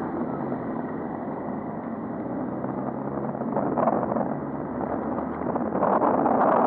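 Road traffic: motor vehicle engines running close by under a steady rushing noise, with a brief louder swell a little before halfway and a rise in loudness near the end.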